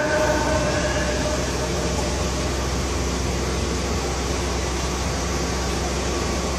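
A pause in the call to prayer: the muezzin's long held note dies away at the start, leaving a steady hiss with a low hum, the background noise of the crowded prayer hall and the recording.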